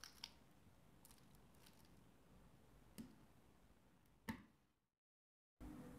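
A few faint clicks of a 3x3x3 Rubik's Cube's layers being turned, over near silence. There are two at the start, one about three seconds in and one just past four seconds.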